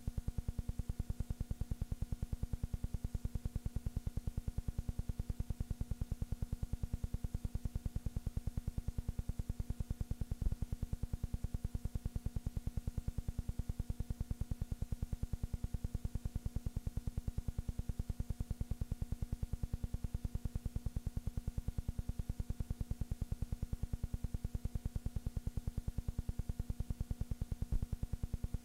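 A steady low hum with a fast, even pulsing and a faint hiss over it, with no sound of the game itself; two faint clicks break it, about ten seconds in and near the end.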